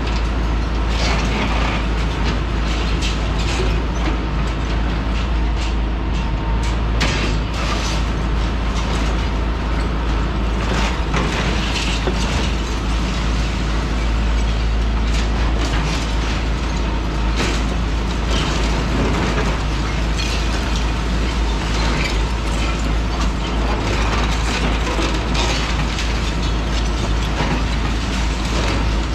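Hitachi ZX210-6HSD demolition excavator's diesel engine running steadily under load, with irregular cracks, knocks and clatter as its demolition tool breaks concrete and rubble falls.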